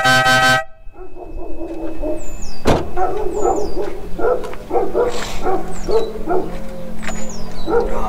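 A short blast from a compressor-fed trumpet air horn, cutting off about half a second in, followed by a dog barking repeatedly, one or two barks a second.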